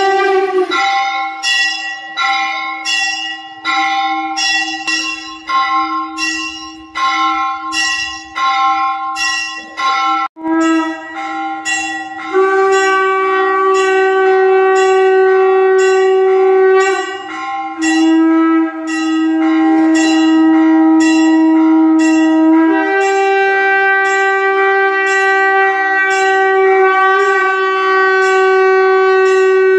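Temple puja sounds: a wind instrument holding long blown notes of several seconds each, stepping between a few pitches with short breaks. A bell is struck about twice a second through the first ten seconds.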